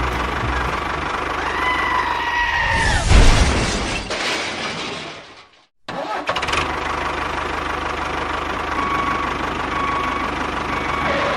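An engine running steadily. It fades out to a moment of silence about halfway through, then comes straight back and runs on.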